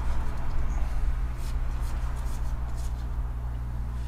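Pokémon trading cards sliding and ticking against each other as they are flipped through by hand, over a steady low hum.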